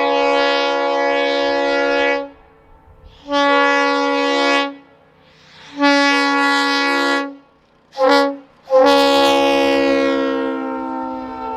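Multi-chime train air horn blowing a chord in a series of blasts: the first ends about two seconds in, two more follow of about a second and a half each, then a quick short toot and a final long blast that sags in pitch as it fades.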